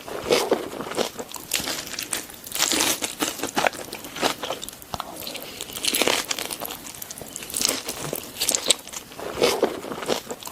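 Close-miked eating: chewing and crunching food in irregular bouts, with clicks and short noisy bursts every second or two.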